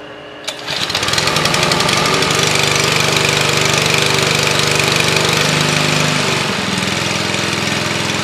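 Small gasoline engine of a portable hydraulic power unit for rescue extrication tools, running steadily after coming up to speed within the first second. It eases down a little in pitch and level about six and a half seconds in.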